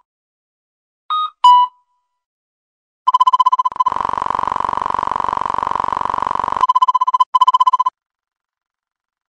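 Electronic alarm tones: a falling two-note beep, then a rapidly pulsing beep that turns into a harsh continuous buzz for a few seconds and returns to rapid pulsing before stopping.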